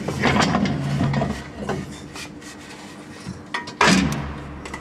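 Metal parts of a Front Runner Slimline II roof rack clattering and knocking as they are handled during assembly. A busy run of clicks comes first, then a single loud knock near the end.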